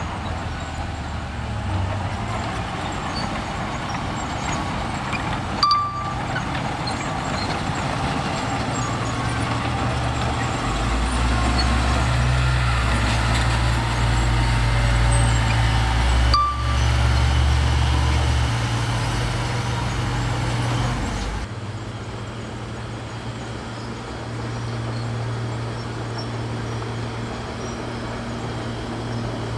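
Bulldozer's diesel engine running under varying load, its low rumble shifting in pitch. It grows louder through the middle and drops suddenly about two-thirds of the way through.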